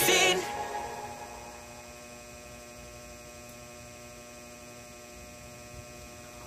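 The last notes of a pop song die away in the first second or so, leaving a steady electrical hum of several held tones.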